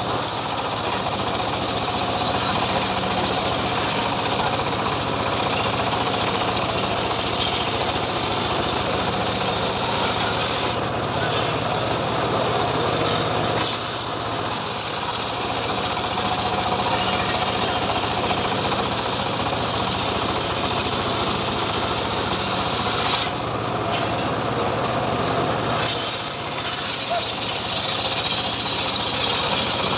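Engine-driven, home-built sawmill running continuously while cutting mahogany, a steady engine drone under the hiss of the saw in the wood. Twice the high cutting hiss drops away for a couple of seconds and then returns.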